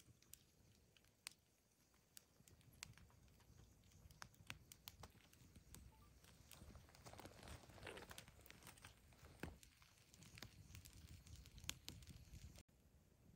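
Faint crackling and popping of a wood campfire burning in a metal brazier: scattered sharp pops throughout, with a soft rustling swell a little past the middle.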